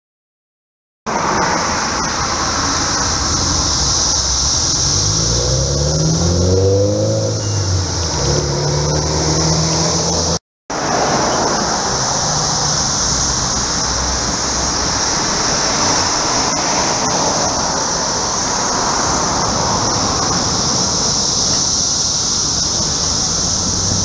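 A steady high-pitched drone of a periodical cicada chorus, with traffic noise underneath. Between about four and ten seconds in, a car passes, its engine note rising and falling.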